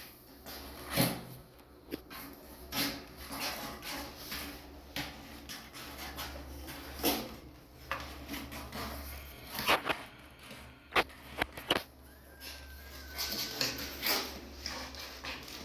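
Irregular short knocks, scrapes and rustles over a low steady hum, the sharpest knocks about a second in and again around ten to eleven seconds in.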